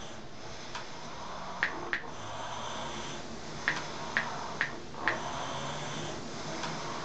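Steady background hiss with six short, sharp clicks in the middle seconds, two close together and then four spaced about half a second apart.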